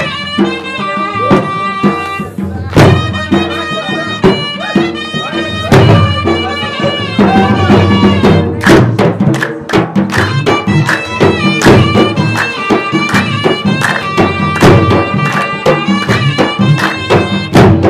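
Traditional Pashtun Attan dance music: drums beat a steady rhythm under a melody instrument playing long held notes.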